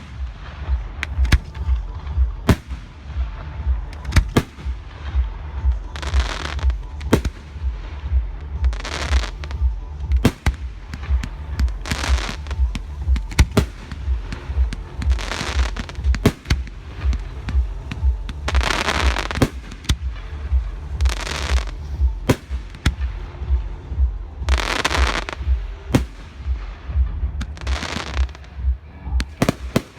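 Fireworks display: a steady run of sharp bangs from bursting shells, with swells of crackling and hissing every second or two, over music with a regular low beat.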